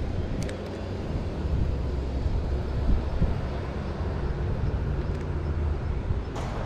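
Steady low rumble of road traffic from a busy intersection.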